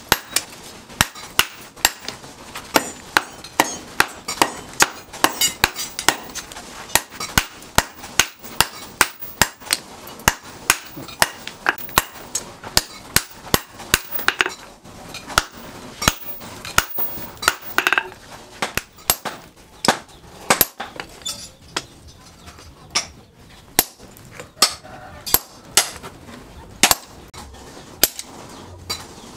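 Hand-forging blows of a steel hammer on red-hot leaf-spring steel resting on a steel post anvil, struck in a steady rhythm of about two a second, each blow with a short metallic ring.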